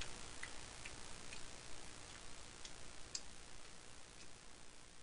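Faint, irregularly spaced light clicks, a few a second or fewer, over a steady background hiss that slowly fades.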